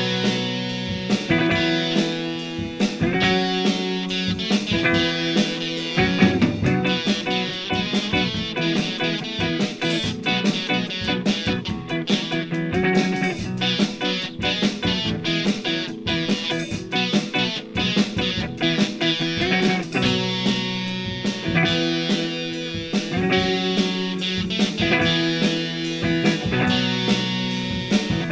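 Background guitar music with a steady, regular beat.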